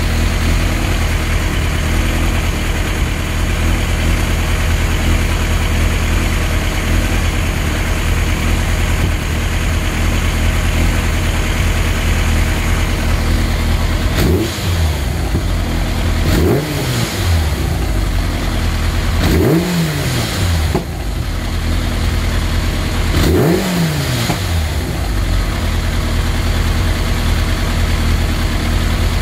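Kawasaki Zephyr 1100's air-cooled inline-four, fitted with a Wyvern titanium exhaust, idling steadily. In the second half it is blipped four times, each rev rising quickly and falling back to idle.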